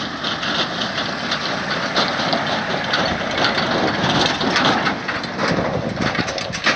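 Land Rover Defender driving slowly past close by, towing a twin-axle trailer over a rough stubble field: a dense crunching with many small clicks from the tyres and trailer, over the low running of the engine.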